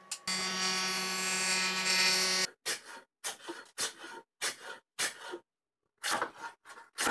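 Small benchtop jointer running steadily as the edge of a pine frame is passed over its cutterhead, stopping abruptly after about two and a half seconds. Then a hand plane takes quick strokes along the pine, about two a second, shaving it flush, with a short pause near the end.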